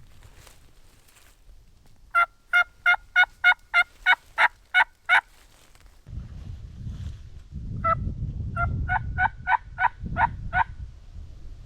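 Turkey yelping: a run of about ten evenly spaced yelps, about three a second, then after a pause a second run of about nine. A low rumbling noise lies underneath in the second half.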